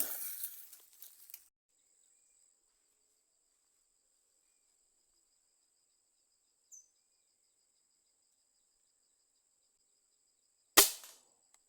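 A hushed wait with only faint steady high-pitched tones, then a single sharp shot about eleven seconds in that dies away quickly.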